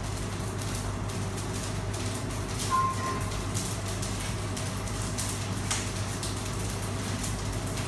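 A steady low machine hum, with a short high beep about three seconds in and a few faint clicks.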